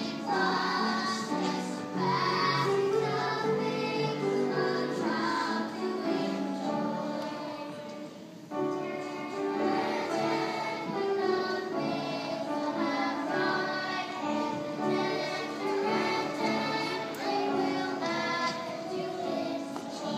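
Children's choir singing a Christmas medley with upright piano accompaniment. The singing drops off briefly about eight seconds in, then resumes at full level.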